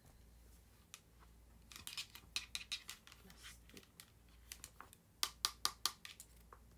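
Clicks and taps of a keyboard folio case for an iPad Pro 12.9 being handled and its cover folded: a flurry about two seconds in, then four sharper clicks in quick succession near the end.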